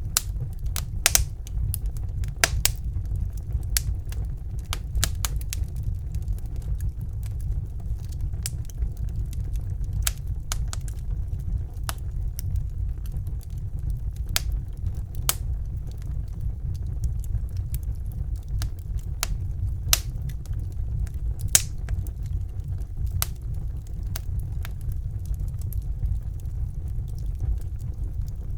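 Fireplace fire crackling: irregular sharp pops and snaps, a few louder ones, over a steady low rumble.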